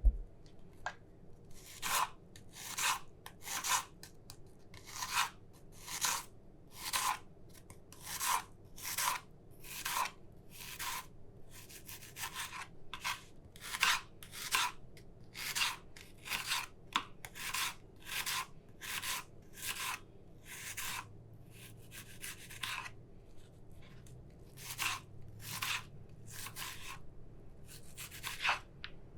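Knife cutting an onion: a steady run of crisp slicing strokes, about one to two a second.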